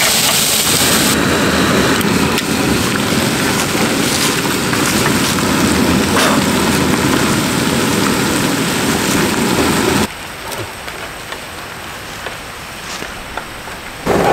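Heavy rain falling steadily, a dense hiss of drops. About ten seconds in it suddenly drops to softer rain, then turns loud again just before the end.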